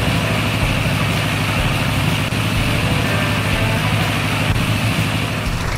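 Heavy truck engine idling steadily, with an even rush of air from large drying fans over it, as a cement mixer truck stands in a truck wash.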